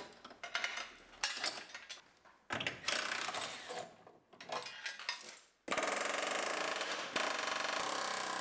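Steel chain clinking and clanking as a frame-machine pull clamp is rigged, with a short mechanical whirr about three seconds in. About two-thirds of the way through, a pneumatic air chisel starts hammering steadily into the sheet metal of the quarter panel, a fast even rattle that gets a little louder a second later.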